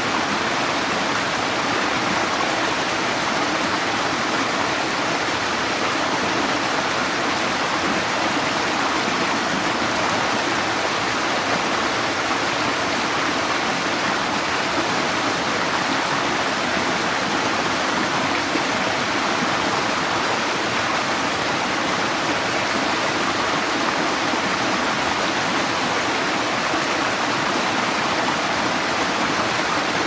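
Small cascade of a rocky creek pouring over boulders: a steady rush of falling water.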